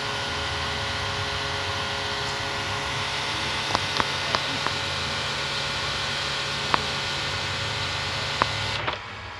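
Half-horsepower Tullu electric water pump running with a steady hum while its jet hisses out of the nozzle, with a few sharp clicks. A little before the end the hiss and hum drop away abruptly.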